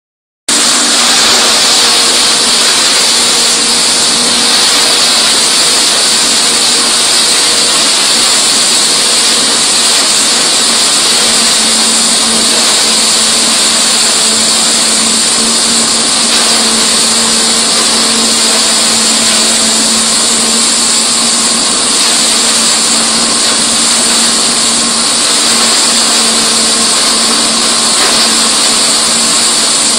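LHWS-1000 sawdust hammer crusher and its discharge fans running, a loud steady machine noise with a low hum under a strong high hiss. It cuts in abruptly just after the start.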